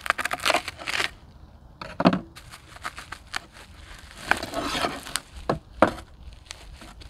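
Bubble wrap crinkling and tearing in short crackly bursts as it is slit with a knife and peeled away.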